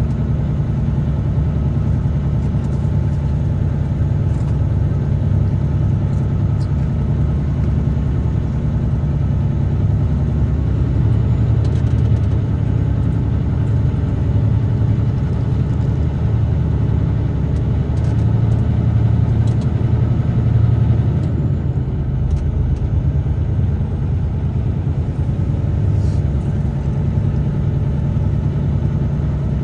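A truck driving along a road: a steady, low engine and road rumble.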